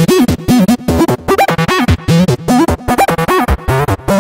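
Outro music built from rapid, chopped notes, several a second, that bend up and down in pitch, broken by brief gaps.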